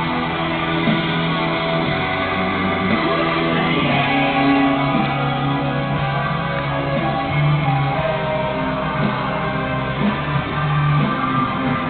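Background rock music with guitar, playing steadily throughout.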